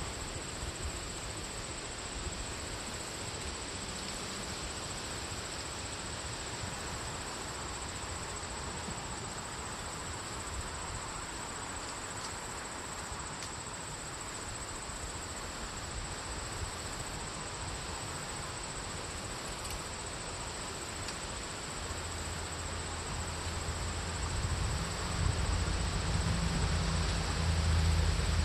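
Steady high-pitched insect chorus, typical of crickets, over a constant hiss. Low rumbling comes in about three-quarters of the way through and grows louder near the end.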